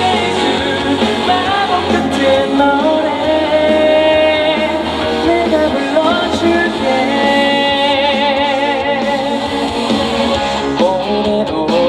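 Live pop music from a band, with a voice singing over it.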